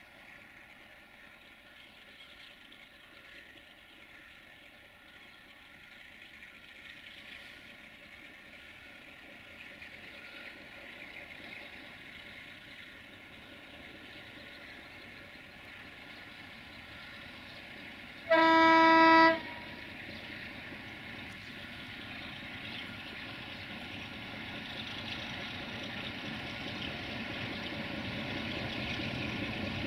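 A 060-DA (LDE2100) Sulzer diesel-electric locomotive hauling a freight train, its engine and the train growing steadily louder as it approaches. A little past halfway the locomotive's horn sounds one steady blast of about a second.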